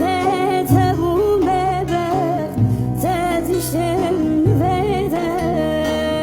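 Turkish folk song (türkü): a voice singing a richly ornamented, wavering melody over instrumental accompaniment with a recurring low bass note.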